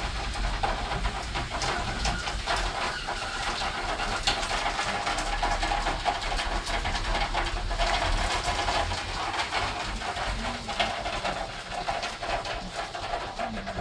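Steady heavy rain falling, a continuous hiss with many sharp drop ticks close by.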